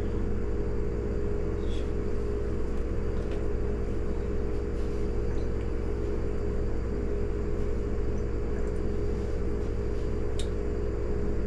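Steady low mechanical hum with a few faint short clicks, about two seconds in, about three seconds in and near the end.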